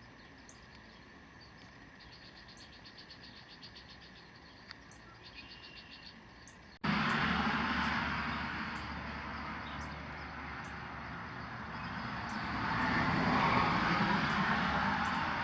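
Faint ambience with thin high chirps and short trills, then a sudden jump about seven seconds in to a louder steady rushing noise.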